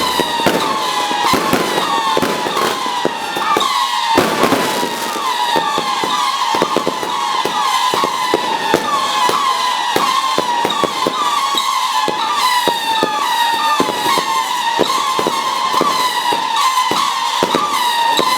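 Fireworks going off: a fast, continuous crackle of pops and bangs, with a heavier burst about four seconds in, under a steady run of overlapping whistles that each fall in pitch.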